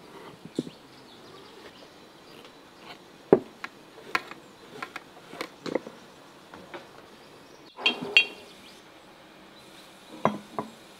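Large glass jars knocking and clinking as whole eggplants are pushed down into them by hand: irregular sharp knocks, the loudest about three seconds in, and two short ringing glass clinks about eight seconds in.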